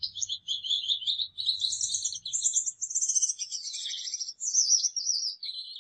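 Gouldian finches chirping: a continuous run of quick, high chirps and twitters.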